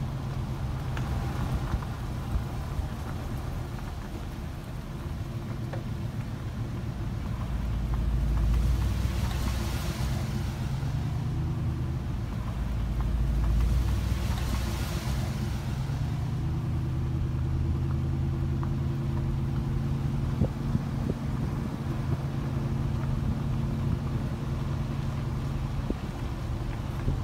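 Steady road and engine rumble heard from inside a moving car. Twice, about a third of the way in and again about halfway through, a vehicle passes close by with a swelling and fading rush.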